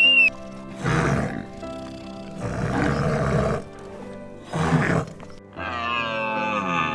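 A large wild animal gives three short, rough calls over steady background music, followed near the end by a longer, pitched call that falls in pitch.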